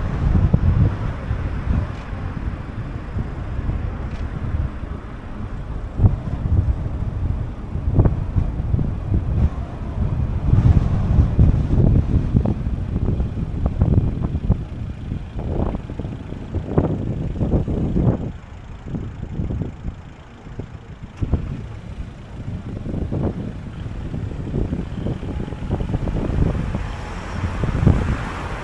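A car driving through city streets: low, rumbling road and traffic noise with wind buffeting the microphone, easing off for a few seconds about two-thirds of the way through.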